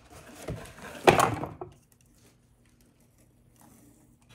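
A cardboard box and its contents being handled: rustling and scraping, with a sharp knock about a second in. The handling stops after nearly two seconds, leaving only a faint hum.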